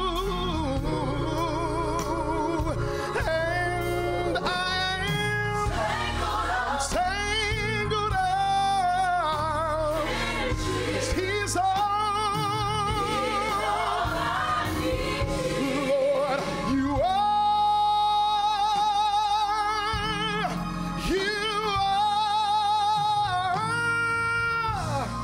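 Gospel group singing live: a male lead vocalist with a mixed choir of men and women. About two-thirds of the way through, a long held note with vibrato.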